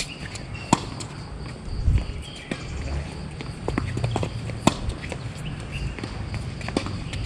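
Tennis ball being struck by rackets and bouncing on a hard court during a rally: several sharp pops about a second apart, over a low steady rumble.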